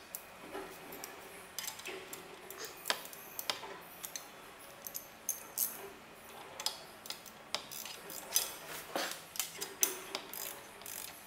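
Hand ratchet clicking in short, irregular runs, with light metallic clinks of the tool and socket, as a crash-guard mounting bolt is turned in on a motorcycle.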